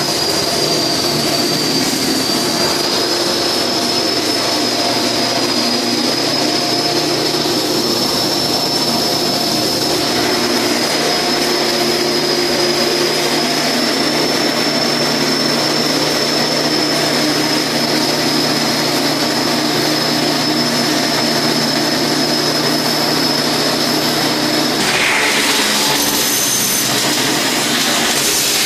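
Flux-cored arc welding on stainless steel: a steady, loud hiss with a thin high whine running through it. Near the end the whine stops and the hiss turns rougher.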